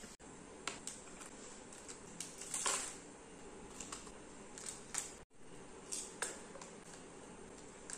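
Snack packets in crinkly plastic wrappers being handled and set into a plastic lunch box tray: scattered light crinkles and taps, with a louder rustle about two and a half seconds in. The sound drops out briefly twice.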